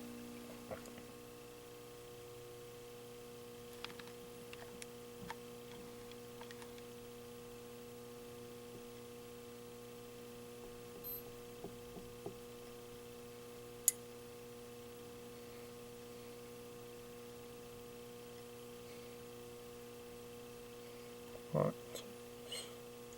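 Steady electrical mains hum with a few faint clicks scattered through it and one sharp click about 14 seconds in.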